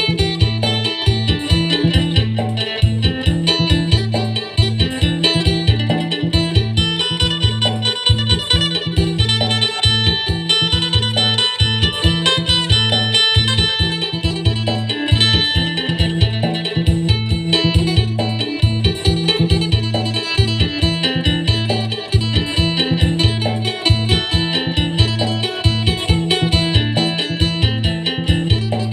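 Acoustic phin, the Isan plucked lute, playing a clear-toned, quick melody in the upbeat phin sing style over a steady backing beat with a repeating bass line.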